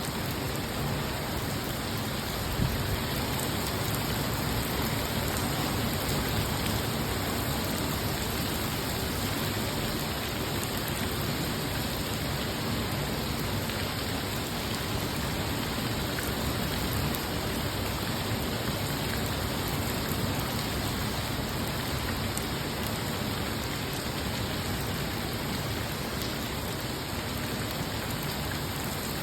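Steady rain falling, an even hiss that holds at the same level throughout, with one brief louder tap about two and a half seconds in.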